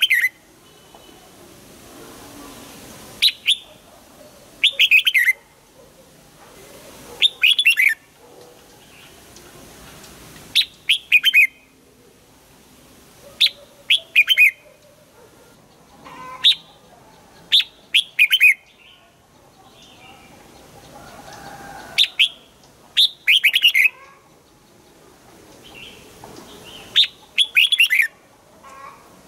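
Red-whiskered bulbul singing: short, loud phrases of quick warbled notes, repeated every one to four seconds.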